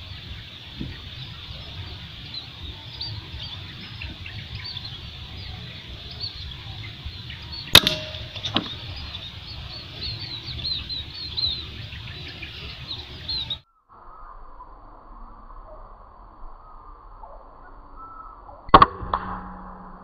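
Two sharp shots from a Sharp Tiger air rifle, about eleven seconds apart. Behind them, small birds chirp high and rapidly, and the background changes abruptly after a brief dropout between the shots.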